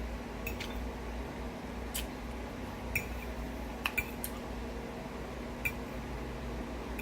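Utensils clinking against a plate: a handful of light, scattered clinks over a steady low hum.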